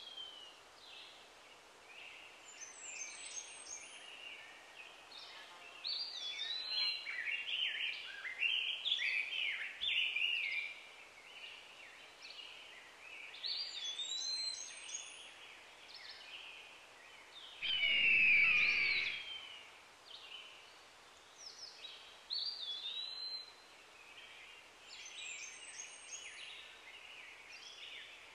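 Several small birds singing and calling, a run of short whistled chirps and trills with gaps between phrases. About two-thirds of the way through comes one louder, harsher call lasting about two seconds.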